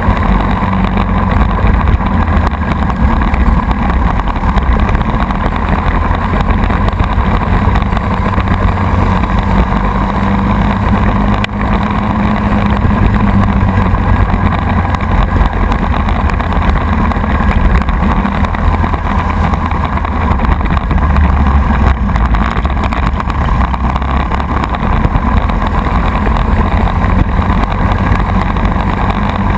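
Briggs & Stratton Animal single-cylinder four-stroke kart engine running hard under racing load, heard onboard the kart, with a brief drop in level about eleven seconds in.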